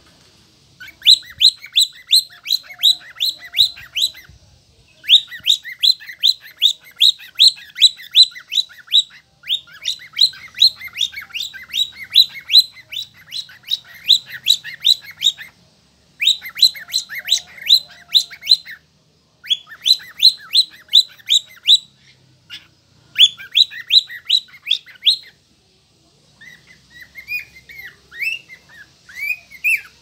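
Lutino cockatiel chirping: quick, high chirps about four or five a second, in runs of a few seconds broken by short pauses. Near the end they turn to softer, lower, more varied warbling.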